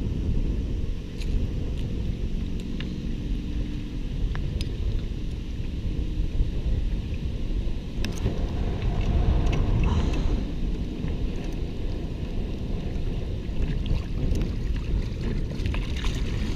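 Wind buffeting the microphone as a steady low rumble, with water slapping against a kayak hull. Scattered light clicks come from a metal hook-removal tool working a hook out of a perch's mouth.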